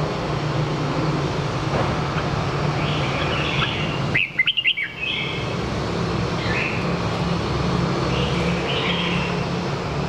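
Red-whiskered bulbul singing short, bright phrases every couple of seconds. The loudest phrase, a quick run of notes, comes about four seconds in. A steady low hum runs underneath.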